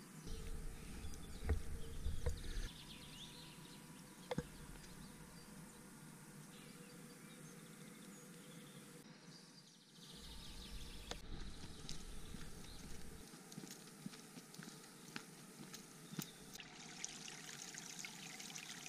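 Faint outdoor ambience on a forest hiking trail: a steady hiss with scattered clicks and knocks, and low rumbles in the first few seconds and again about ten seconds in.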